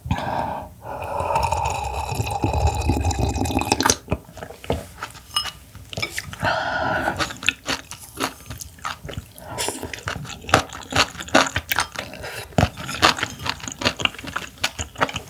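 Close-miked eating of raw clam meat: a continuous wet slurp over the first four seconds, then chewing with many small, sharp, wet mouth clicks.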